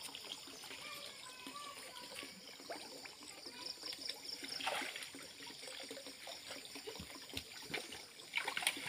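Muddy water trickling and sloshing softly as a man wades waist-deep and sweeps a hand net through it. A brief splash comes about five seconds in, and another near the end.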